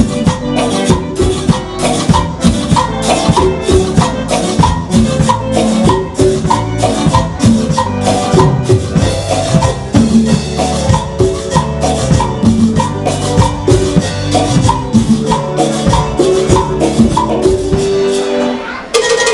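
Live band playing upbeat dance music: a drum kit keeping a quick, steady beat under keyboard chords and melody. The music stops briefly near the end.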